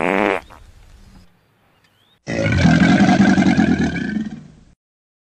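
A large animal calling twice: a short call right at the start, then a longer, louder call of about two and a half seconds beginning about two seconds in, which cuts off abruptly.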